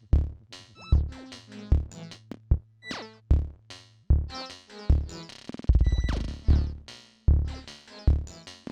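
Electronic jam on Korg Volca groove boxes: a drum machine beating a steady kick pulse under synth bass and keyboard notes, with falling pitch sweeps and a rapid drum roll about two-thirds through.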